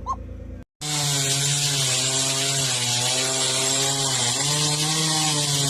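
A power tool's motor running steadily with a hiss over it, its pitch dipping slightly and rising again. It starts abruptly just under a second in and cuts off abruptly at the end.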